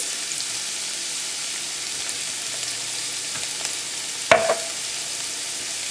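Chopped onions with ginger and garlic paste sizzling steadily in hot oil in a frying pan. A single sharp click sounds about four seconds in.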